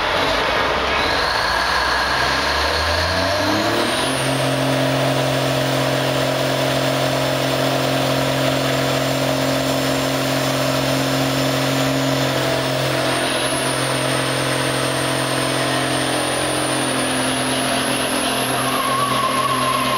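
Mack Superliner's Cummins diesel revving up over the first few seconds, then held at high, steady revs through the Allison automatic while the rear tires spin and smoke in a burnout.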